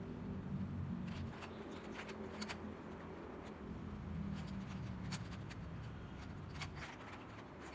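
Plastic 3x3 puzzle cube being turned by hand: irregular quick clicks and clacks as its layers snap round, some in close pairs, over a low rumble.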